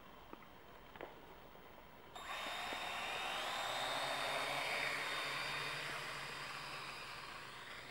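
Small quadcopter drone's motors and propellers whining, starting suddenly a couple of seconds in, with high thin tones that glide in pitch, then slowly fading as it flies off.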